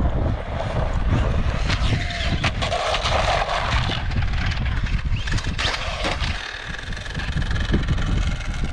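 Arrma Talion and Traxxas Slash 4x4 RC cars driving on asphalt: their brushless electric motors and tyres make a loud, steady noise with a heavy low rumble.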